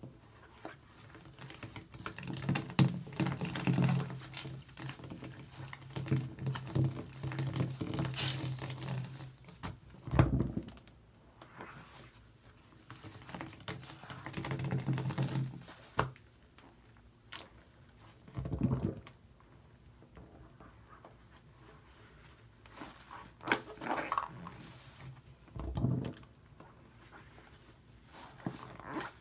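A foam-soaked sponge is squeezed and squished by hand in a basin of thick shaving-cream foam, giving irregular wet squelches and drips, with a few louder squishes. A low steady hum runs under it twice, for several seconds each time.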